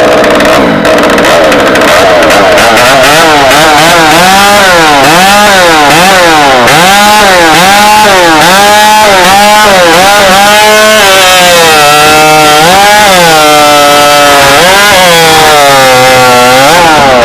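Stock-appearance competition chainsaw running flat out and cutting through a log. The engine pitch dips and recovers over and over as the chain bites and the saw rocks in the cut.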